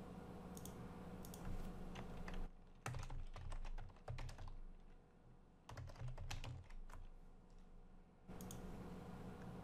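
Faint typing on a computer keyboard: a few single clicks, then keys clicking in two quick short runs as a word is typed.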